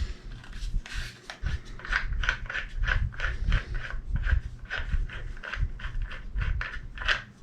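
Hand-turned bolt and doorknob rubbing and scraping in a test-drilled hole in scrap wood, as a run of short, even strokes at about three or four a second.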